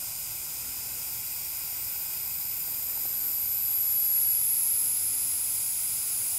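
Steady hiss of oxidizer venting from a hybrid rocket motor as it is filled from the supply tank, slowly growing louder, with a faint high whistle coming in about halfway through. It is the sound of a slow fill still under way.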